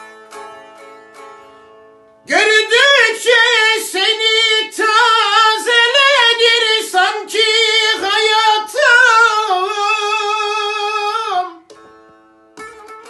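Bağlama (long-necked saz) plucked softly. About two seconds in, a man's loud, free-rhythm uzun hava vocal comes in, a long melismatic line of wavering, ornamented held notes that lasts about nine seconds. The saz picks up again near the end.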